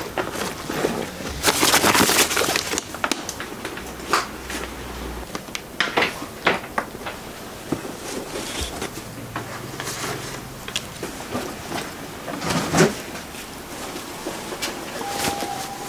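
Handling noises from clasp purses being inspected: a burst of rustling about two seconds in, then scattered light clicks and knocks. The loudest is a sharp knock about thirteen seconds in.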